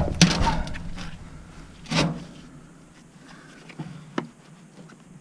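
Handling noises from work on a manure spreader's floor conveyor: a scraping, rattling burst about a second long at the start, a sharp knock about two seconds in, and a lighter click near the end.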